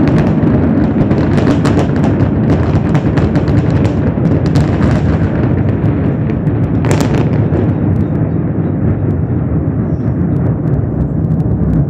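Fireworks going off: a dense run of crackling bangs over the first five seconds or so, one loud burst about seven seconds in, then scattered pops, all over a steady low rumble.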